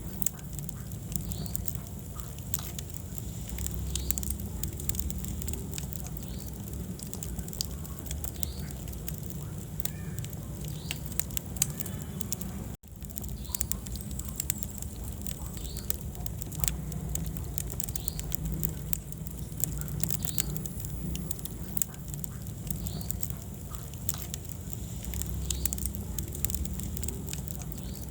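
Wood fire burning in a fireplace: a low steady rumble of flames with frequent sharp crackles and pops. The sound cuts out for an instant about halfway through.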